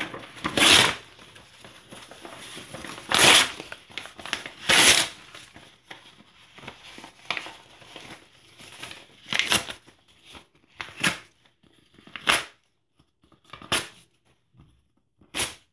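Newspaper and printed paper sheets being torn by hand: about eight short rips a second or two apart, with light paper rustling between them.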